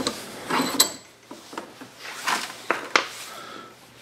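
Metal hand tools, a punch among them, being set down and handled on a wooden workbench: a few light knocks and clicks, one with a brief metallic ring, with handling rustle between them.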